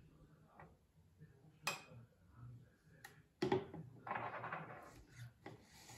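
Metal spoon clinking and scraping against a dessert glass and a plastic jug while mascarpone cream is spooned in, with a few sharp clicks, a louder knock about three and a half seconds in, and a second of scraping just after.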